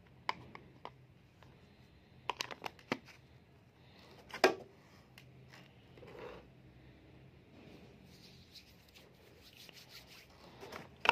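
Handling noises of a plastic cream jar and its lid: scattered small clicks and knocks, with one louder knock about four and a half seconds in. Near the end, rustling of cardboard and paperboard packaging.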